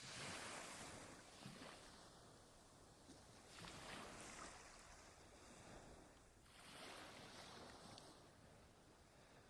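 Sea waves washing ashore, quiet, with three surges about three seconds apart, each swelling up and then fading away.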